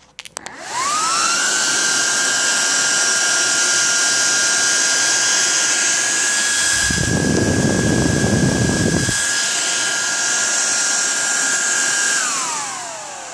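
Several 12 V Papst server fans running overvolted on a 19 V notebook power supply. After a few clicks as the power connects, they spin up with a rising whine to a loud, high steady whine over a rush of air, with a low rumble for about two seconds midway. Near the end the whine falls steadily in pitch as the fans spin down.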